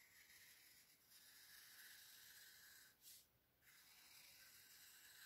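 Faint scratching of a Sharpie fine-point marker drawn across watercolour paper in two long strokes, the first lasting about three seconds and the second starting shortly after the middle.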